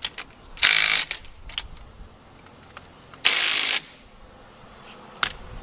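Hand-held power tool running in two short bursts of about half a second each, driving bolts tight on a tractor's front axle, with a few small clicks between.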